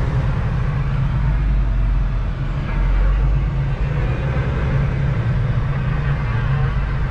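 Diesel engine of a 2023 Kenworth T680 semi truck running steadily while the truck creeps through a parking lot, a low drone with no change in pitch.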